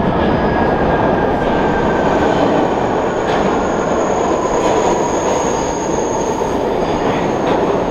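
Train running on rails: a steady loud rumble, with a high steel-wheel squeal rising over it for about two seconds past the middle.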